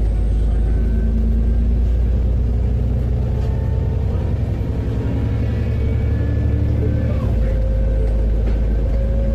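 Alexander Dennis Enviro400 MMC double-decker bus heard from inside the passenger deck: a low engine rumble with a thin whining tone that rises slowly in pitch as the bus pulls. This is the strange noise the bus makes when accelerating, its cause unknown.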